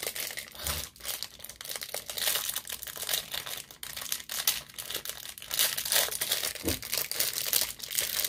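Crinkly plastic wrapper of an L.O.L. Surprise toy packet crumpled and torn open by hand, with steady irregular crackling.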